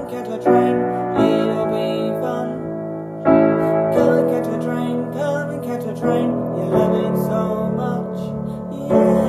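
A woman singing a slow song over held piano chords, a new chord struck every one to three seconds.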